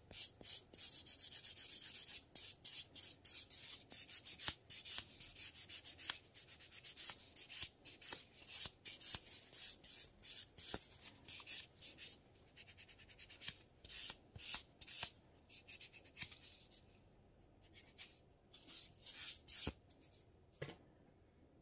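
Gentle side of a nail sanding file rubbed back and forth across a bare fingernail in quick, light strokes. The strokes thin out over the last few seconds and then stop. This light sanding raises dust that would outline any gel left after drilling.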